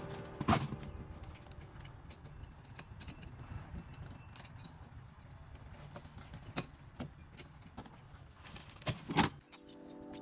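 Scattered clicks and knocks of tools and hardware being handled over a low rumble, with a sharp knock about half a second in, another around six and a half seconds in, and two quick knocks near the end.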